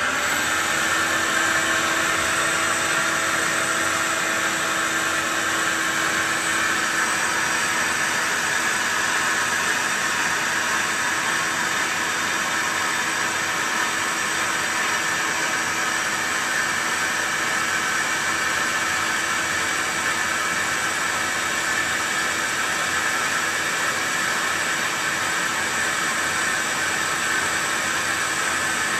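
Mori Seiki MS-850G lathe running steadily while its tool turns a cast iron chuck back plate: an even hiss of the cut over a steady low tone that sets in just as it begins.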